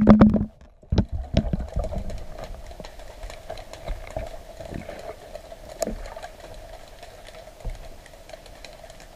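Camera housing knocking against rock a few times near the start, then a faint steady hum with scattered light ticks and clicks.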